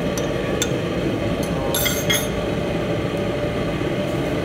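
A metal spoon clinking and scraping against a small ceramic bowl as its contents are knocked out into a wok: a few light clicks, then a quick cluster of clinks about two seconds in. Underneath is a steady low rumble from the commercial kitchen's stove.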